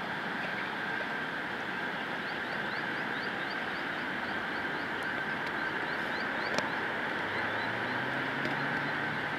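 Steady hum of distant road traffic, with a bird giving a quick series of short rising chirps for a few seconds in the middle and a low engine drone coming in near the end.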